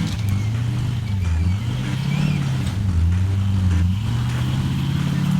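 Off-road vehicle engine running under changing throttle, its pitch rising and falling every second or so.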